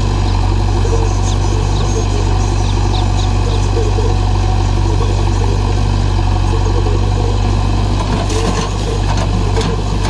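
Diesel engines of a JCB 3DX backhoe loader and a Mahindra tractor running steadily at low revs while the backhoe works, with a short clatter about eight seconds in.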